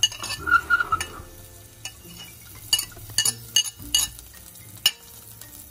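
Knife scraping and tapping chopped garlic off a plate into a pan, a scattered string of sharp clicks, over a faint sizzle of the garlic starting to fry in oil.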